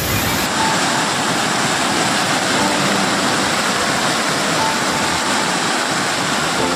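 Muddy floodwater rushing past in a fast torrent: a loud, steady rush of water.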